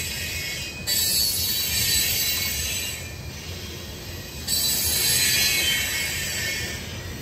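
Freight train cars rolling past, with a low rumble and a high-pitched hiss and squeal from the wheels on the rail. The high part jumps up suddenly about a second in and again near the middle, then fades off each time.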